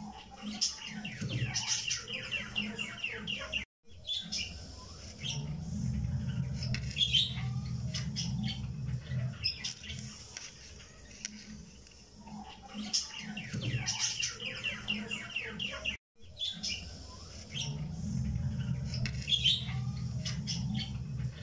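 Looped background audio of fast bird-like chirping over a low steady hum, the same stretch repeating about every 12 seconds with a brief cut-out to silence just before each repeat.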